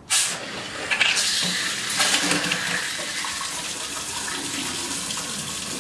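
Water from a newly fitted Vapsint monobloc spring-neck mixer tap, turned on for the first time, gushing into a stainless steel sink bowl: it starts suddenly, surges a couple of times in the first two seconds, then runs steadily.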